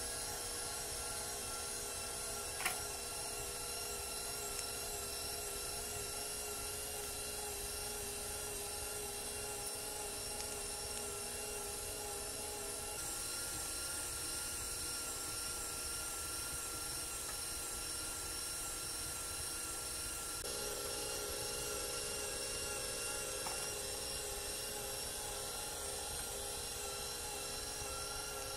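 KitchenAid stand mixer's motor running steadily, driving its food grinder attachment to push sausage meat through the stuffing tube into the casing. Its steady whine shifts slightly in pitch twice.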